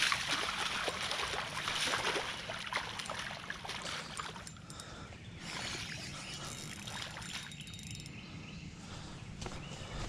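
A hooked fish thrashing in shallow water at the bank, splashing and churning the surface. The splashing is heaviest over the first few seconds, comes again around five seconds in, then eases off.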